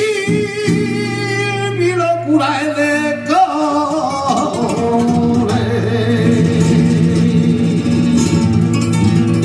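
A male flamenco singer sings an ornamented, wavering petenera phrase over acoustic flamenco guitar. The voice is strongest in the first half, and the guitar carries on under it to the end.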